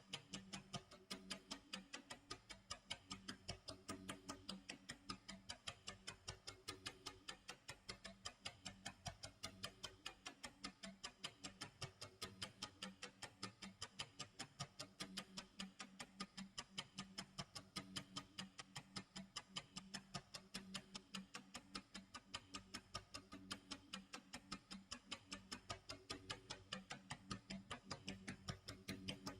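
Clock tick-tock sound effect: faint, even ticking at a steady rhythm, over a faint low tone.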